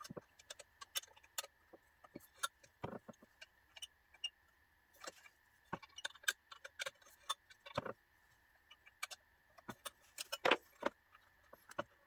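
Irregular clicks and metallic clinks of hand tools on small metal locomotive parts being worked loose, with a faint steady high whine underneath.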